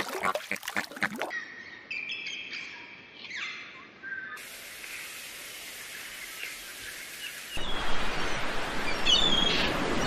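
Edited run of bird sounds. Waterfowl calling stops about a second in, and scattered bird calls follow. Then comes a stretch of steady hiss, and from about three-quarters of the way through, many small bird chirps over a louder steady rushing noise.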